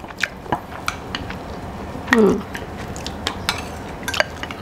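Eating utensils, spoon and chopsticks, clicking and scraping against glass and ceramic bowls in a string of light, irregular clinks. A brief voice sound comes a little past halfway.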